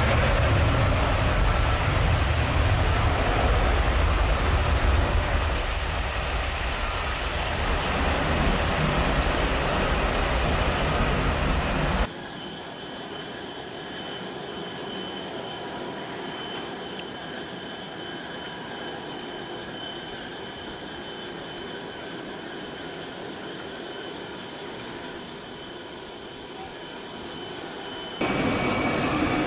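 Airbus A320 jet engines at takeoff thrust on a wet runway: a loud roar with a deep rumble that eases a little after about five seconds. About twelve seconds in it cuts to a much quieter, steady airport background with faint steady tones. Near the end a loud jet-engine roar returns as another A320 begins its takeoff roll.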